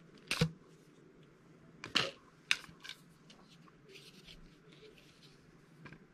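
A few sharp clicks and knocks from handling a digital caliper and a fishing rod as the caliper jaws are brought onto the rod butt; the loudest come about half a second in and around two seconds, with fainter ticks later.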